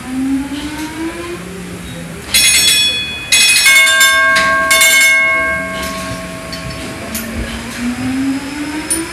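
PS Waverley's three-cylinder triple-expansion steam engine running steadily, with a bell ringing loudly in a quick clatter of strokes between about two and five seconds in. The last ring dies away over a couple of seconds.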